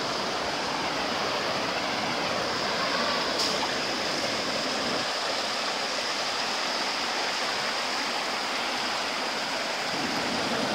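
Shallow creek water rushing steadily over rocks and through a logjam of fallen trees.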